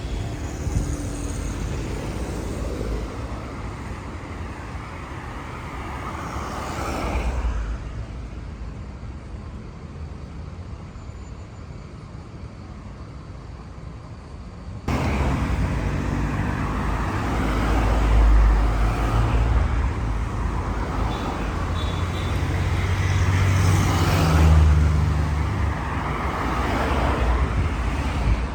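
Road traffic on a busy city avenue: a steady rumble of engines and tyres, with several cars passing close by one after another. About halfway through the sound abruptly gets louder.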